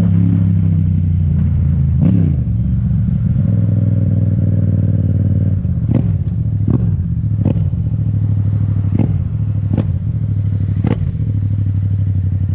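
Yamaha MT-07's parallel-twin engine running steadily through a full titanium Akrapovič exhaust with the dB killer removed, with a short blip about two seconds in. A series of sharp pops from the exhaust comes in the second half, popping the owner puts down to the engine running a bit lean.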